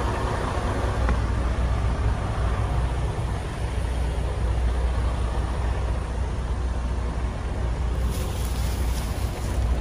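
A steady low rumble with an even hiss over it, from a machine running without a break.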